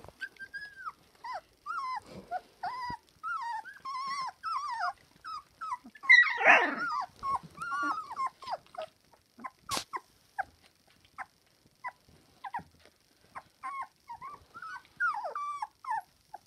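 Young puppies whining and yelping: many short, high squeals that rise and fall, one after another. About six seconds in there is a louder, harsher burst, and near the ten-second mark a single sharp click.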